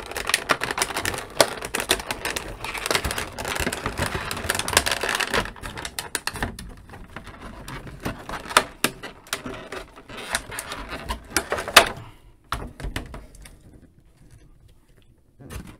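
Clear plastic blister tray crinkling and crackling as an action figure is pulled out of it, dense for about the first six seconds, then scattered sharp clicks and snaps, quieter after about twelve seconds.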